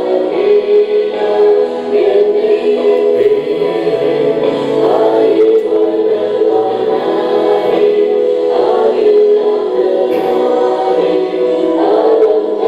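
Gospel praise-and-worship song played back from a live worship DVD: a group of singers holding long notes in harmony.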